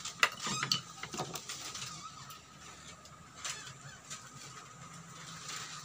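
Sharp clicks and light knocks of cooked spider conch shells and fingers against a plate while eating by hand: a cluster of clicks in the first second or so, then quieter scattered ticks.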